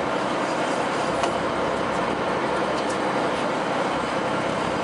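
Steady running noise of a sportfishing boat's engine and water along the hull, with a few faint ticks.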